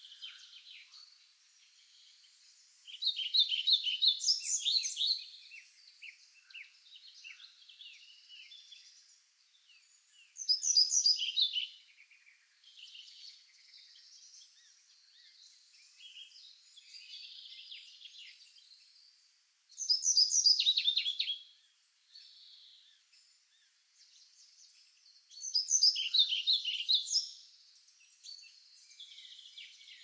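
A songbird repeating the same rapid phrase of notes four times, one phrase about every seven to eight seconds, each lasting about two seconds. Fainter songs and chirps of other birds fill the gaps.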